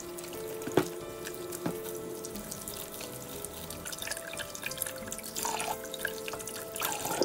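Water from a kitchen tap running into a bowl in a stainless steel sink while hands scrub plantains and sweet potatoes, with splashes and a few knocks of the produce. Background music with held notes plays throughout.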